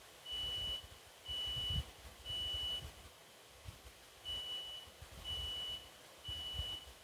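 Residential smoke alarm sounding under test: a high-pitched beep in the temporal-three evacuation pattern, three half-second beeps about a second apart, a pause, then three more.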